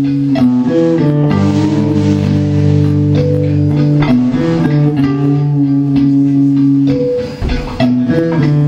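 Guitar music with a bass guitar underneath, playing long held notes that change every second or so.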